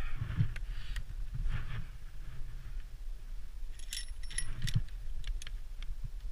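Metal carabiners of a via ferrata lanyard clinking and jingling against the fixed steel chain, with a cluster of ringing clinks about four seconds in. A steady low rumble runs underneath.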